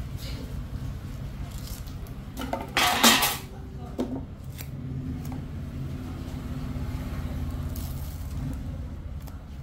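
Double-sided adhesive tape being handled: a short, loud rip about three seconds in as tape is pulled from the roll, a sharp knock a moment later, and soft crackling of the backing being peeled near the end, over a steady low hum.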